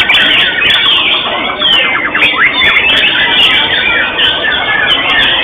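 Several white-rumped shamas singing at once: a dense tangle of quick chirps and gliding whistles, heard through a low-quality, muffled recording.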